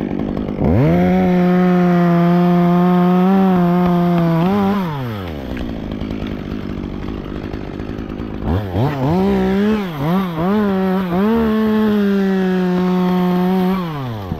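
Top-handle chainsaw cutting through a dead tree limb at full throttle in two long cuts. Between them it drops back to idle, and at the start of the second cut the revs dip and pick up several times before holding steady, then fall back near the end.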